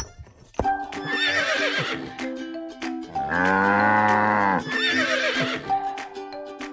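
Background music with farm-animal sound effects: a horse whinnying about a second in and again near the end, and a long, loud, lower animal call in the middle.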